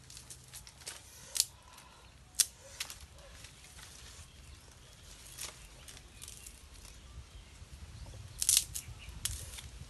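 Dry sticks and twigs cracking and clattering as they are handled and laid onto a pile of firewood by hand: a few sharp cracks spread through, with a louder cluster near the end.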